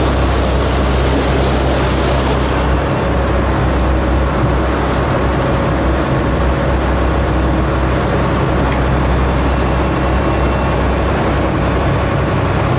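Motorboat engine running steadily underway, a constant low hum under the rush of water along the hull.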